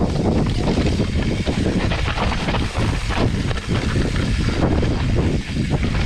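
Mountain bike descending a rough downhill dirt trail: a dense, steady rush of wind on the microphone with the rumble of tyres and many small knocks and rattles from the bike.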